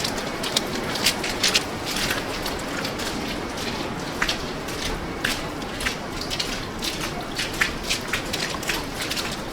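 Falling snow in a snowstorm, flakes and drops ticking irregularly on a nearby surface, several sharp clicks a second over a steady hiss.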